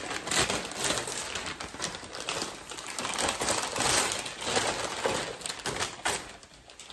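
Gift wrapping paper crinkling and rustling as it is peeled and pulled off a box, in a quick run of crackly rustles that tail off near the end.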